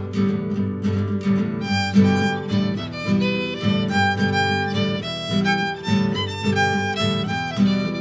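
Instrumental break in an acoustic song: a violin plays a stepping melody over a strummed acoustic guitar, with no singing. The violin line grows brighter about two seconds in.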